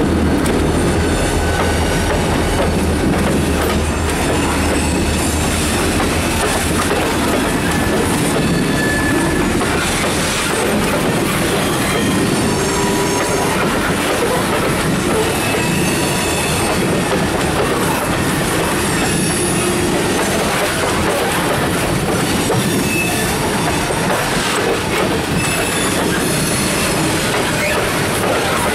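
A freight train of open-top coal hopper cars rolling past at close range: a steady rumble and clatter of steel wheels on rail, with short wheel squeals coming and going. For the first few seconds the deep rumble of the EMD SD40-2 diesel locomotives' engines is also heard, fading away as they pull off.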